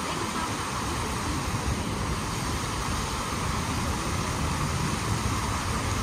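Steady rushing of a large fountain's tall water jets falling back into the lake, with an uneven low rumble from wind on the microphone.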